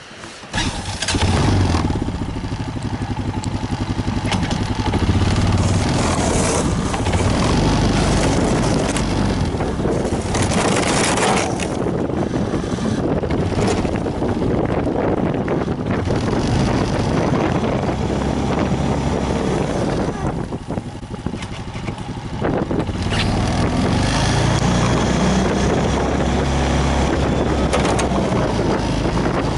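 An engine running steadily under a loud rushing noise, easing off briefly about two-thirds of the way through.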